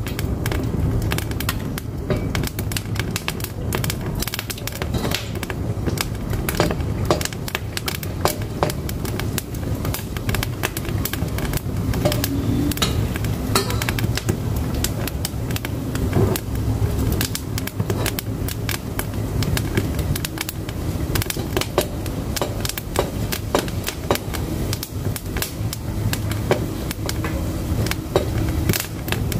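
Firewood burning in a wood-burning cookstove: a steady run of irregular crackles and sharp pops over a low, even rumble from the fire.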